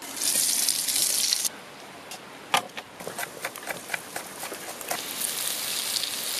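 Chopped onion sizzling loudly in hot fat in a pot, stopping suddenly after about a second and a half. Then a chef's knife chops garlic on a wooden board in a quick run of sharp knocks. Near the end, sizzling starts again in the pan.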